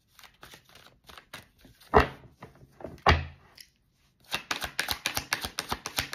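A deck of tarot cards being shuffled by hand: scattered soft card clicks with two sharp knocks about a second apart, then, after a brief pause, a fast, even run of card flicks as the deck is shuffled hand to hand.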